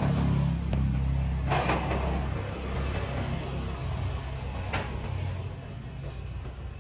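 A low steady rumble that slowly fades, with three sharp knocks: a small one under a second in, a louder one with a short ring at about one and a half seconds, and another near five seconds.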